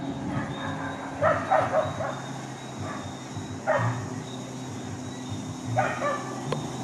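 Dogs barking in three short bouts, the first and last of several barks each, over a steady low hum.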